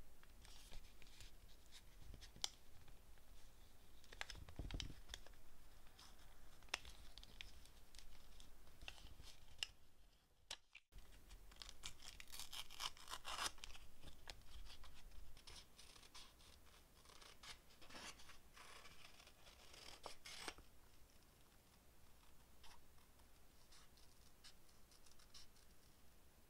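Faint paper handling: thin printed paper being folded and crinkled around a small journal, with soft rustles and small clicks. The sound drops out completely for a moment about ten seconds in, then there is a denser stretch of crinkling.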